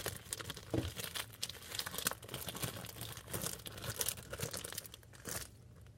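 Plastic bag crinkling with irregular crackles as slime is squeezed and pulled out of it, easing off near the end.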